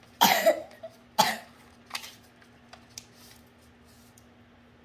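Two short coughs about a second apart, then a few faint ticks.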